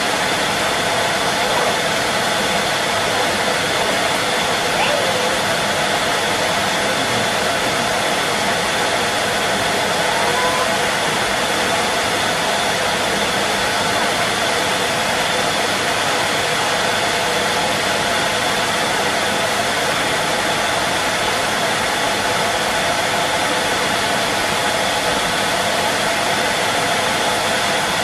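Henry vacuum cleaner running steadily, a constant motor whine over the rush of air, with no change in pitch or level.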